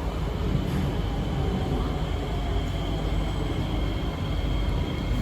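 Inside a C151B MRT train in motion: a steady low rumble of running gear with high, steady whine tones from the traction equipment that come in about a second in. This is the acceleration sound that the rider took for an anomaly.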